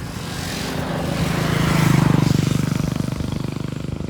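A motor vehicle passing by: its engine grows louder to a peak about two seconds in, then fades away.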